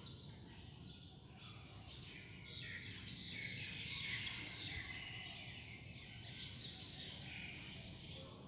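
Faint birds chirping in the background, a dense chorus that grows a little louder in the middle.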